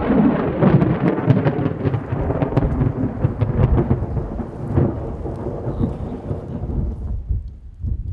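Close thunder from a supercell thunderstorm: a crack of lightning gives way to a long rolling rumble with sharp crackles, which dies away about seven seconds in.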